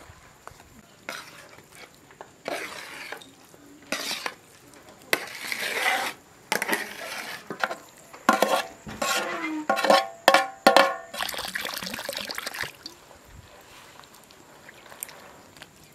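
A perforated metal spoon scraping mashed pumpkin off a metal tray into a steel mixing bowl: a run of scrapes and knocks, with several ringing metal-on-metal clanks around the middle.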